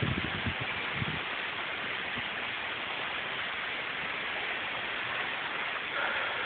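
Steady hiss of a severe thunderstorm after a microburst, with a few low wind buffets on the microphone in the first second.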